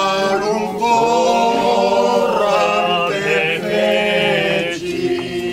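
A group of voices singing a slow chant, with long held notes that ease off near the end.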